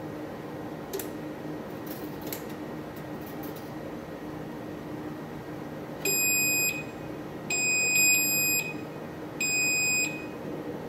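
Cuisinart four-slice toaster signalling that its cycle is done, with three loud beeps at one high pitch, the middle one the longest. A few faint clicks come in the first few seconds as the toast is raised.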